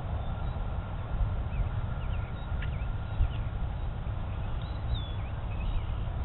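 Distant jet engines of an Airbus A300 freighter on approach: a low, unsteady rumble with a faint steady whine over it. Small birds chirp briefly now and then.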